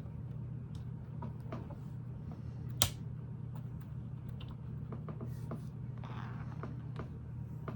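Lego plastic pieces being handled and fitted, with scattered small clicks and one sharp snap a little under three seconds in, over a steady low hum.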